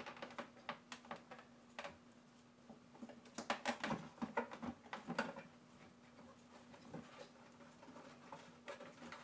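Scattered light knocks and clicks of an 18-inch RCF LF18X400 speaker driver being handled and seated into the cutout of a plywood speaker box, with a quick flurry of taps from about three to five and a half seconds in.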